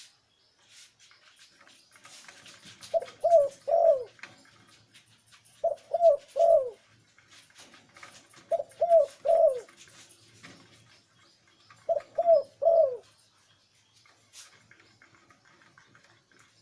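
Male zebra dove cooing: four phrases of three short, falling coos, one phrase about every three seconds.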